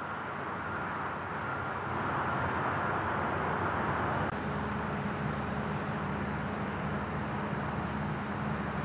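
Diesel engines of heavy construction equipment running steadily. About four seconds in the sound changes abruptly to a lower, steadier engine hum.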